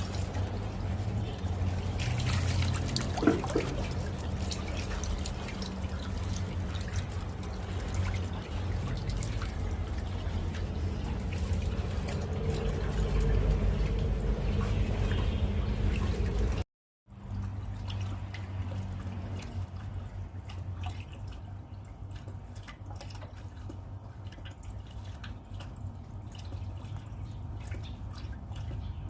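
Water trickling and dripping as a catfish pond is drained. There is a brief break about two-thirds of the way through, after which it goes on more quietly.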